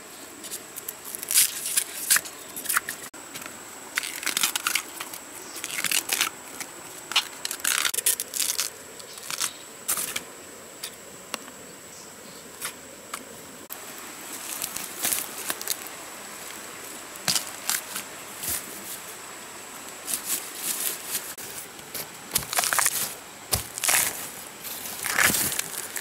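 Dry bamboo leaves and twigs crackling and crunching underfoot and under hand, in irregular bursts of sharp cracks and rustles, with occasional knocks from a machete working a bamboo shoot.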